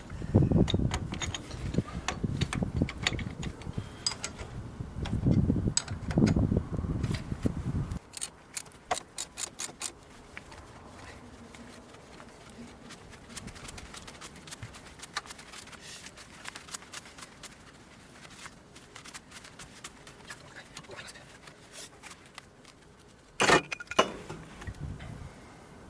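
Hand tools clicking and clinking on the spreader's metal parts during disassembly, with a quick run of rapid, evenly spaced clicks about eight seconds in and one sharp knock near the end. Low rumbling handling noise fills the first several seconds.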